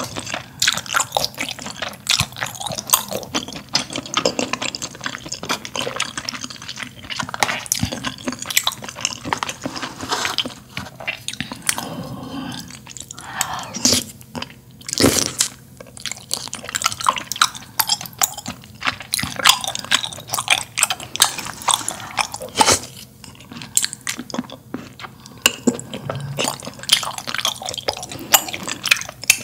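Close-up mouth sounds of a person eating malatang (spicy mala soup): wet chewing of chewy pieces, with frequent sharp clicks and smacks throughout.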